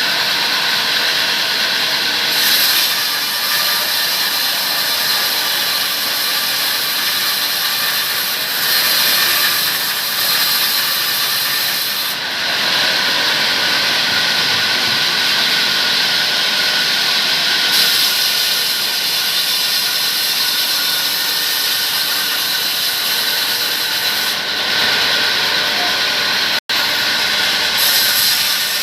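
Sawmill saw cutting through a palm tree trunk: a steady, high-pitched rasping whine with faint held tones, swelling and easing over stretches of several seconds as the cut goes on. It cuts out for a split second near the end.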